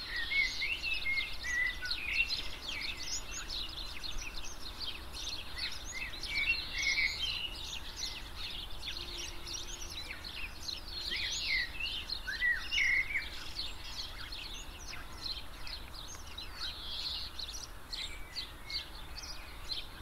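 Several small birds chirping and singing over one another, a busy scatter of quick high notes and short phrases that keeps on throughout, over faint steady background noise.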